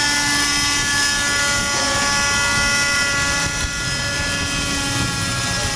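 Raptor radio-controlled helicopter running at flight power, a steady high-pitched whine with many overtones, as it lifts off and flies out.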